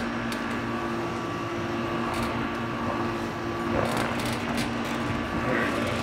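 Steady machine hum holding a few fixed tones, with a few faint clicks.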